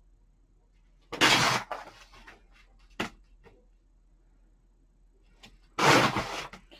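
Paper being ripped along the scalloped edge of a plastic tear ruler: two short tears about four and a half seconds apart.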